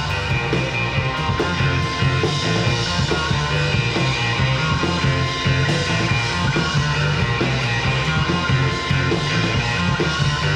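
Indie rock band playing an instrumental passage live: two electric guitars, bass guitar and drums, steady and loud, with no singing.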